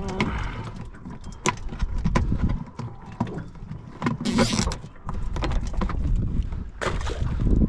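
Hands splashing and rummaging in a plastic bucket of water to catch a live bait fish, with repeated knocks and clicks against the bucket and its lid, and a bigger splash a little after the middle.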